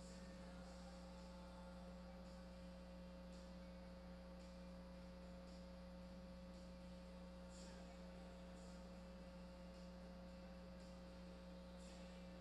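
Near silence with a steady low electrical hum.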